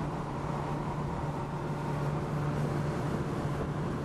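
Inside the cab of a 1969 Subaru 360 van cruising at about 55 mph. Its small air-cooled two-stroke twin runs at a steady speed under road and wind noise, making an even drone that does not change.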